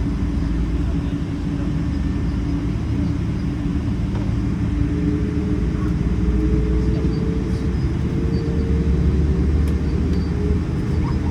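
Steady low rumble of a Boeing 777-300 heard from inside the cabin with its engines running. An engine tone rises a little from about halfway through.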